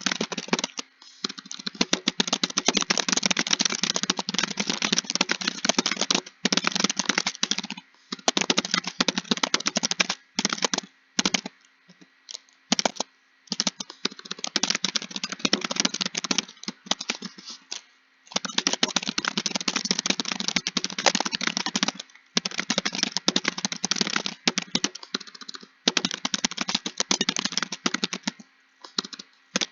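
Fast typing on a computer keyboard: dense runs of key clicks lasting a few seconds each, broken by short pauses.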